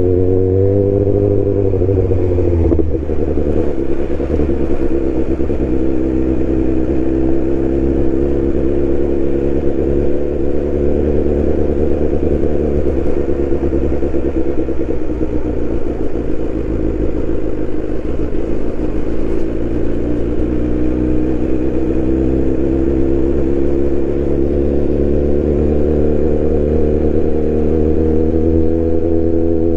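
BMW S1000R's inline-four engine running, with a brief rise in revs that drops back about two to three seconds in, then a steady note whose pitch creeps up a little near the end.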